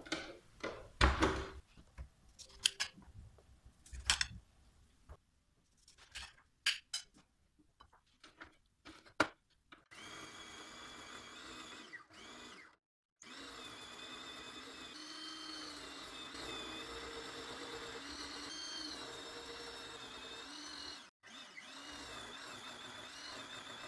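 A few clicks and knocks of a Moulinex food processor being handled, then about ten seconds in its electric motor starts and runs steadily, driving the citrus-press cone. Its pitch wavers as orange halves are pressed onto the spinning cone.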